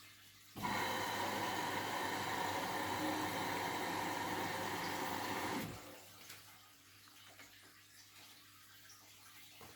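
Water rushing through a Siemens washing machine, starting abruptly, running steadily for about five seconds and stopping, then faint trickling and drips.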